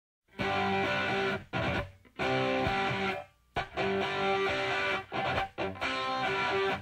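Background music: an electric guitar playing held chords in short phrases, starting about a third of a second in, with brief breaks between the phrases.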